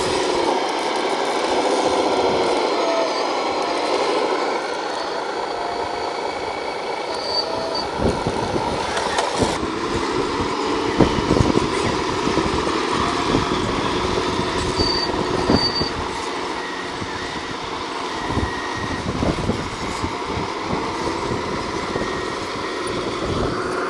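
Radio-controlled scale earthmoving machines working dirt: small electric drive motors and gearboxes whine, rising and falling in pitch. Clattering and crunching of tracks, gravel and stones runs under them, with a run of sharp clicks and knocks through the middle.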